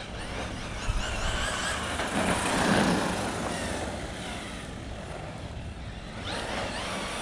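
Brushless motor of a 1/10-scale RC monster truck running on a 3S LiPo, whining up in pitch as it accelerates about a second in and again near the end, over a steady rushing noise.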